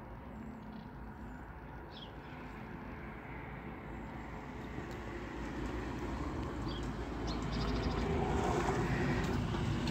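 A motor vehicle approaching, its rumble growing steadily louder through the second half. A bird chirps briefly twice.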